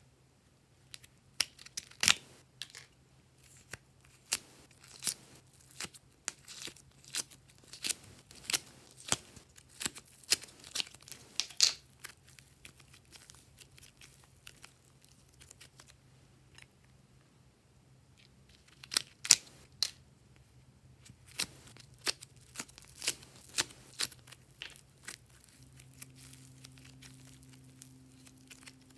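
Glossy slime being worked by hand, giving irregular sharp pops and clicks in two busy runs with a lull of several seconds between them.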